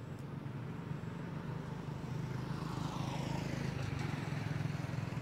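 A motor vehicle running, growing louder from about two seconds in as it draws near, over a steady low engine hum.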